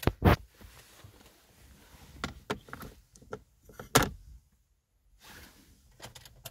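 Scattered light clicks and knocks of hands handling parts in a car's open centre console, the loudest about four seconds in as a smartphone is set down on a wireless charging pad.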